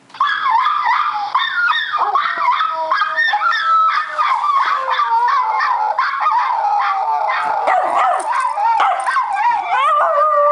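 Schnauzer howling, a loud, long wavering howl that starts abruptly and keeps going, its pitch sliding up and down.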